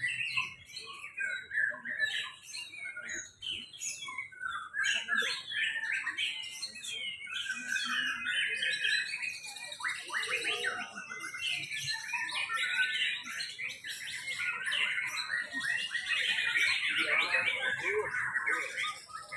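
Many white-rumped shamas singing at once, an overlapping chorus of whistled phrases and chirps that is busiest near the end.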